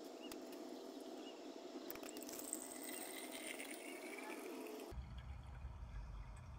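Rinse water being decanted off settled gold powder, poured from a glass beaker into a glass mason jar. It is a faint trickling pour whose pitch rises as the jar fills, and it cuts off suddenly about five seconds in, leaving a faint low rumble.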